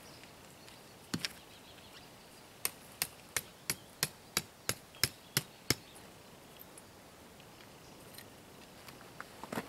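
Tent stake being hammered into the ground: a double knock, then about ten sharp, evenly spaced strikes at roughly three a second.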